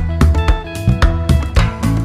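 Background music: plucked guitar notes over a steady beat with a strong bass.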